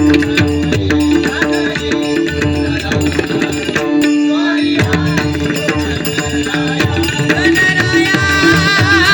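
Bhajan accompaniment: tabla drumming under steady held harmonium notes. Near the end a voice starts singing a long, wavering note.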